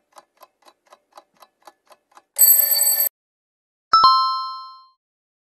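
Countdown-timer sound effects: a clock ticking about four times a second, then a brief alarm-clock bell ringing for under a second as time runs out. A two-note chime follows, struck twice in quick succession and fading over about a second, marking the revealed answer.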